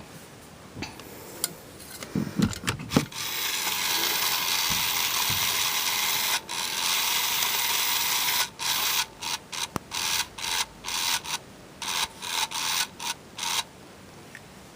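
Motorised toy's gear motor whirring as the toy moves: a few clicks, then one long steady whir, then a string of short whirs starting and stopping about twice a second before it goes still. The toy's voice is silent because its speaker is blown.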